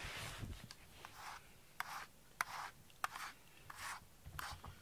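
Cat's fur rubbing close against the microphone: a run of soft swishes, roughly one or two a second, with small sharp clicks among them.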